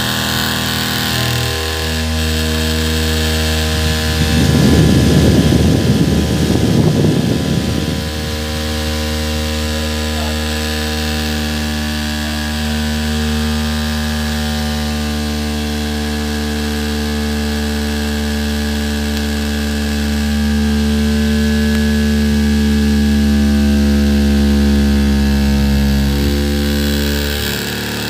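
Small DC motor spinning a CD fan blade, running with a steady whirring hum. From about four seconds in to about eight seconds a louder rattling buzz joins it, and the hum gets a little louder past the twenty-second mark.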